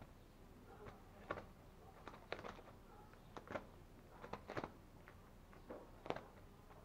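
A kitten's paws and claws scratching and crinkling a woven plastic sack: a string of faint, short scratchy rustles at irregular intervals, the sharpest ones a little over a second in, a little over two seconds in and about six seconds in.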